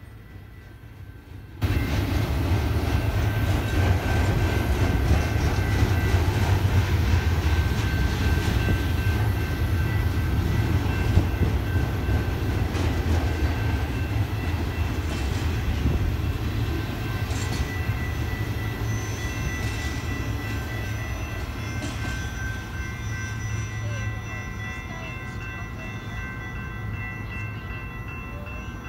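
Freight cars of a double-stack intermodal train rolling past close by: a steady heavy rumble of steel wheels on rail, with thin high-pitched whining tones over it. It comes in abruptly about two seconds in and fades slowly over the second half as the cars pull away.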